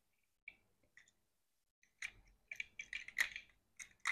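Light clicks and small rattles of a die-cast toy tractor being taken out of its plastic packaging. A few lone ticks come first, then a quick run of clicks about two seconds in, the loudest a little after three seconds.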